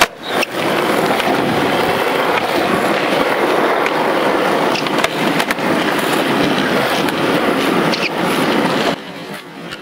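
Skateboard wheels rolling over asphalt: a steady gritty roar with a few sharp clicks. It drops away about nine seconds in.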